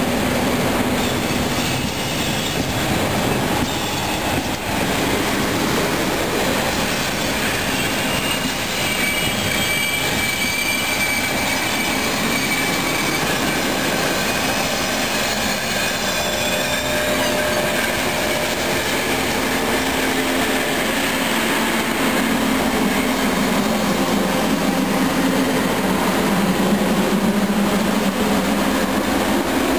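Trenitalia Frecciarossa high-speed train rolling slowly along the platform, with a steady rumble of wheels on rail. High wheel squeal comes in the middle, and a low hum swells near the end as the power car comes alongside.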